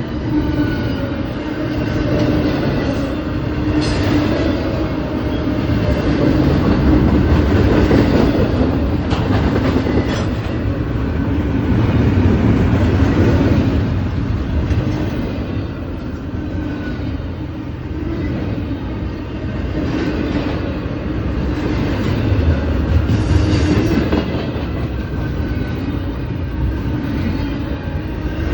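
A train passing close by: a steady loud noise of wheels on the rails that swells and eases, with a few sharp clanks.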